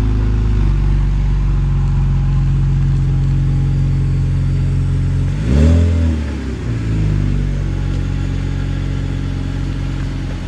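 BMW E46 engine idling steadily with its exhaust leak freshly patched, revving up and back down once about halfway through. It is being run to heat the exhaust so the muffler cement cures.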